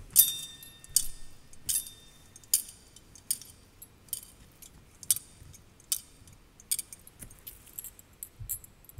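Brass thurible (incense censer) swung on its chains, the chains and lid clinking with each swing a little faster than once a second, the first clink the loudest with a short ring. This is the censing before the Gospel reading.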